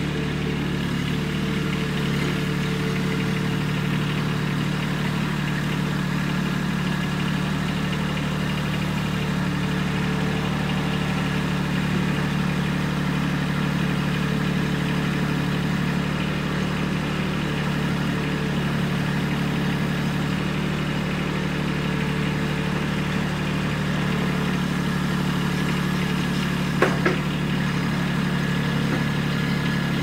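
Kubota compact tractor's diesel engine running steadily at low revs, with a couple of short sharp clanks near the end.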